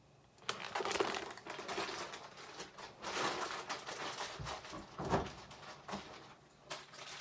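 Plastic bag of shredded cheese crinkling and rustling as it is handled and closed, starting about half a second in, with a dull knock or two around five seconds.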